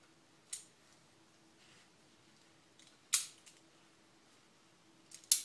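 Four sharp clicks from a ratcheting tie-down strap being handled and hooked on, the loudest about three seconds in.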